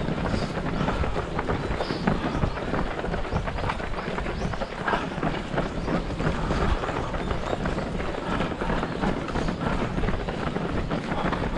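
Strong wind buffeting a body-worn camera's microphone as the runner runs, a steady low rumble and hiss throughout.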